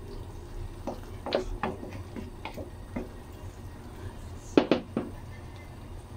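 Wooden spatula stirring a thick tomato-and-egg sauce in a nonstick frying pan, with scattered light knocks and scrapes against the pan. Two or three sharper knocks come about three-quarters of the way through.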